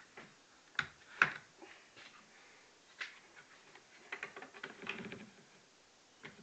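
Knocks and clicks of wood and the plastic sander body as a plywood tilting cradle holding a switched-off belt sander is handled and tilted. A few separate sharp knocks, the loudest about a second in, then a run of light rattling ticks as the cradle is swung over.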